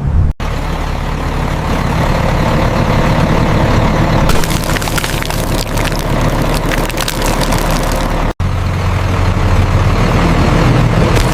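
Animated heavy truck's engine running steadily at a low pitch, with scattered clicks and crackles over it that grow denser about four seconds in. The whole sound cuts out abruptly twice, for an instant, once right at the start and once about eight seconds in.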